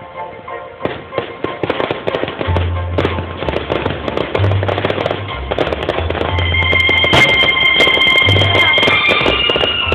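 Fireworks bursting and crackling: a dense run of sharp pops and bangs that thickens about a second in and grows louder toward the end, with music playing alongside.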